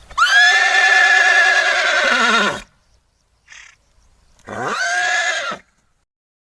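A horse neighing twice: a long, quavering whinny, then a shorter one about two seconds later.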